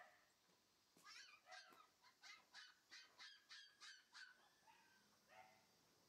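A faint, rapid series of about ten short, high animal calls, evenly spaced at about three a second, then two or three weaker calls.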